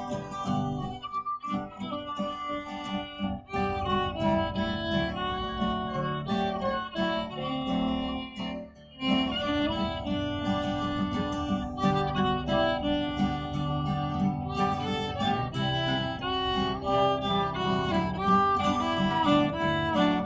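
Instrumental break in a live country song: acoustic guitar strumming a steady rhythm under a fiddle playing the melody.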